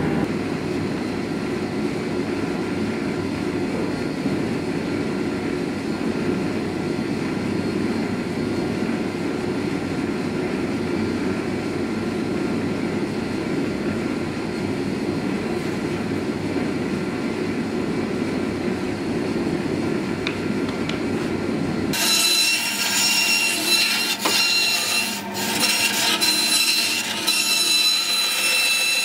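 A steady low mechanical hum for most of the stretch. About 22 seconds in, a bench band saw starts up with a high whine and cuts along a thin wooden board.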